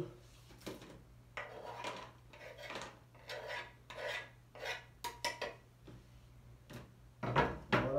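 Knife blade scraping chopped garlic across and off a wooden cutting board into a plastic container: a series of short rasping strokes with a few light clicks.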